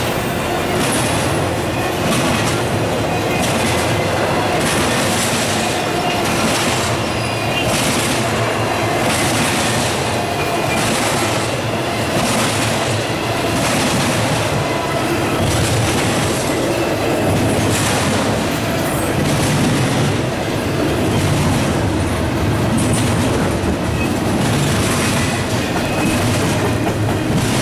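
Intermodal freight train's well cars loaded with double-stacked containers rolling past close by. A steady rumble carries a regular clatter of wheels roughly once a second.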